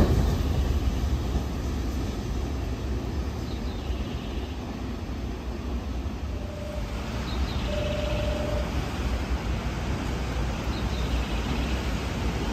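Nankai electric commuter train running through the station and pulling away, its rumble dying down over the first second or two into a steady low background rumble. About six and a half seconds in a short steady tone sounds, then a longer one about a second later.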